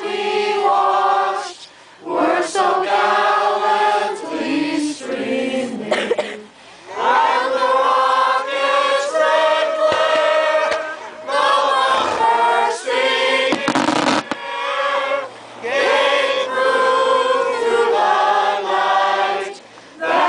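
A group of voices singing together in long held phrases, with short breaks between lines.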